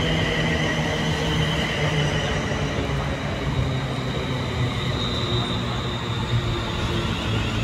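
ScotRail Class 380 electric multiple unit running into the platform: a steady rumble of wheels on the rails with a thin high whine over it.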